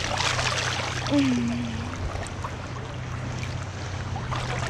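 Sea water splashing and lapping over the steady low hum of a boat's idling engine, with a brief falling vocal sound about a second in.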